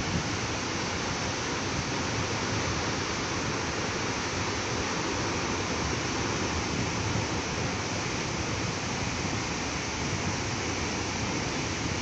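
Joranda waterfall in full spate, swollen by heavy rain: a steady rush of falling water.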